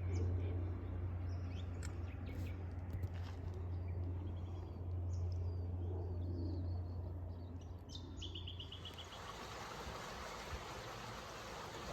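Low steady rumble of distant road traffic with scattered bird chirps over it; just after eight seconds a bird gives a quick trill of about eight even notes. Near the end the rumble drops away, leaving a steady hiss.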